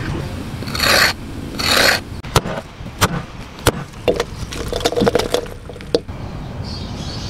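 Two short rasping scrapes, about a second apart, followed by a run of sharp clicks and knocks.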